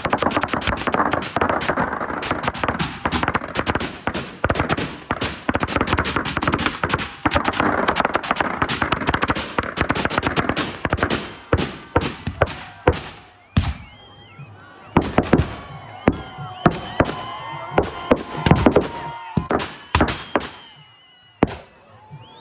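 Firecrackers packed inside a burning Ravan effigy going off in a dense, rapid crackle of bangs. After about thirteen seconds they thin out to scattered, separate loud bangs.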